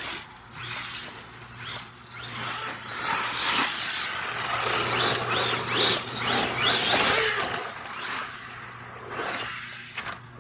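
The brushless electric motor of an ARRMA Mojave EXB RC truck whining up and down in pitch as the throttle is worked hard, over a haze of tyre and ground noise from the truck tearing around.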